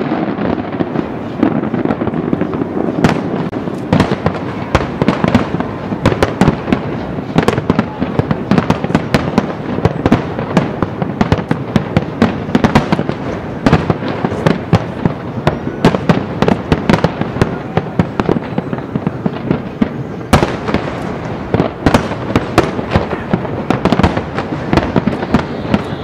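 Aerial fireworks shells bursting in rapid, unbroken succession: a dense, loud run of booms and crackles.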